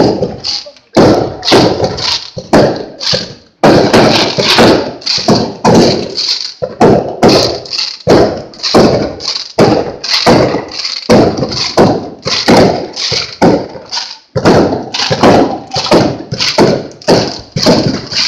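A rapid, irregular barrage of loud firework bangs, about two a second, each dying away quickly, with brief near-silent gaps between some of them.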